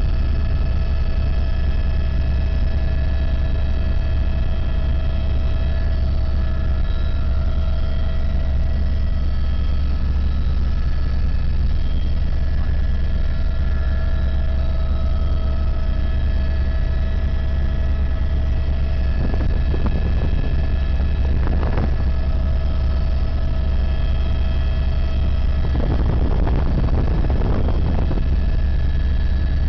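Helicopter in flight heard from on board: a steady low rotor and engine drone with a constant high whine from the turbine and gearbox running over it.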